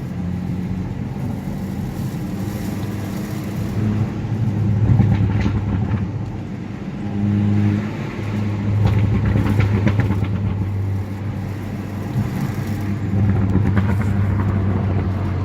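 A car driving, with a steady low road and engine rumble that swells and eases. Clusters of short knocks and rattles come around five, nine to ten, and fourteen seconds in: an abnormal noise from the car's undercarriage.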